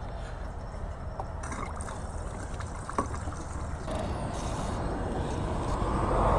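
Gasoline pouring from a plastic gas can into a motorcycle's fuel tank, trickling for the first few seconds. It is followed by a low rumble that grows gradually louder toward the end.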